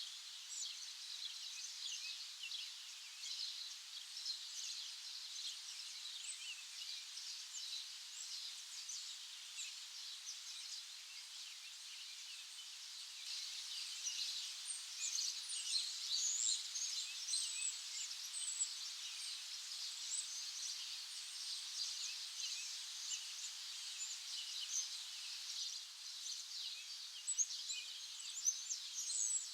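A dense chorus of many small birds chirping over a faint steady hiss, busiest around the middle, with a few sharper, louder chirps near the end.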